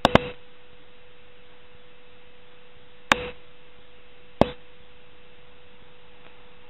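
A steady, faint electrical hum at one pitch over a low hiss, broken by sharp clicks: two right at the start, one about three seconds in and one at about four and a half seconds.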